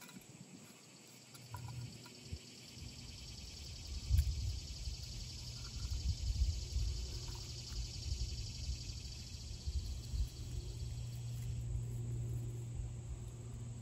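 Insects trilling steadily in a high, finely pulsing buzz that cuts off near the end, over a low rumble that builds from about two seconds in. A few faint clicks and knocks come as pieces of punk wood are handled and pressed into a small metal char tin.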